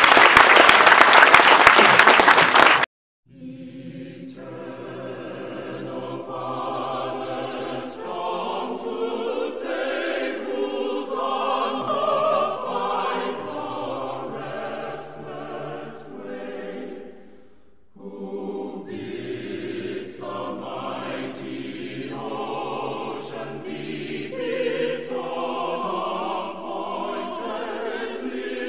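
A choir singing a slow piece of held, layered notes, which fades briefly about two-thirds of the way through and then resumes. It starts just after a loud, even rushing noise in the first three seconds cuts off abruptly.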